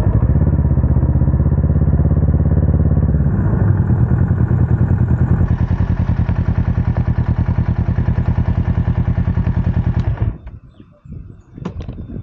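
Motorcycle engine running at low speed with a steady pulsing beat while the bike rolls slowly, then switched off about ten seconds in. A few light clicks and knocks follow.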